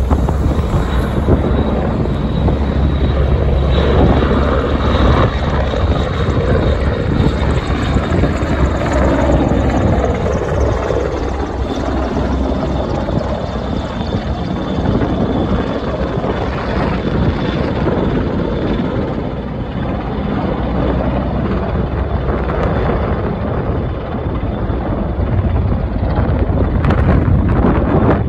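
Two AgustaWestland AW101 Merlin helicopters flying past and away, a loud steady rotor and turbine noise with a falling sweep in pitch about ten seconds in. Wind buffets the microphone.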